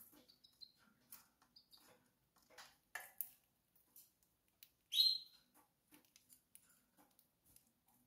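Canary chirping: two faint short high chirps in the first two seconds and one louder chirp about five seconds in, with faint scattered clicks between them.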